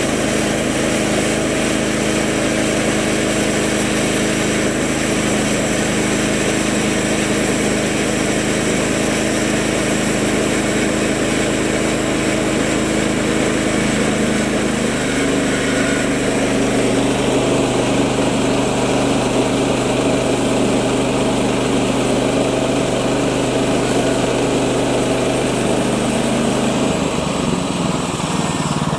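Woodland Mills HM126 portable bandsaw mill running, its gas engine pulling under load while the band blade cuts through a black walnut round. The engine note shifts about halfway through and again near the end.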